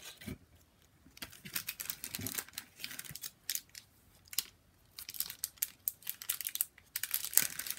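Handling noise from a plastic powder compact held and worked close to the microphone: quick crinkly rustles and small clicks. They come in two stretches, starting about a second in and again about five seconds in.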